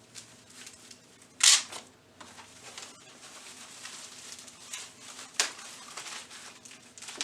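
Packaging being handled during an unboxing: rustling and scraping of box and wrapping, with two sharp, louder scuffs about a second and a half in and again near five and a half seconds.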